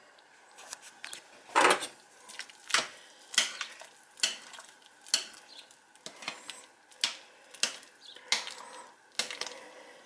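A spoon stirring thick split pea and ham soup in a ceramic slow-cooker crock, knocking and scraping against the crock's sides about a dozen times at irregular intervals.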